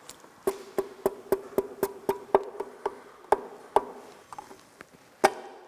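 Light hammer taps driving a piston down through a piston ring compressor into its cylinder: about a dozen quick knocks at roughly four a second, each with a short ring, then a pause and one last tap near the end.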